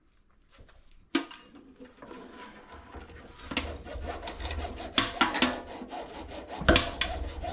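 Irregular scraping and rubbing with a few sharp knocks, as faucet parts and tools are handled during a kitchen faucet installation.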